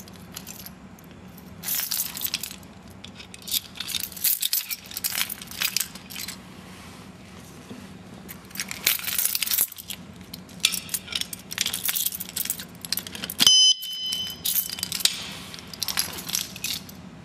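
Metal clicking and rattling as a motorcycle alarm U-lock's shackle is worked through the front wheel and latched into the lock body. About 13.5 s in, one short electronic beep sounds, the lock's "Do" signal that starts the alarm's arming countdown.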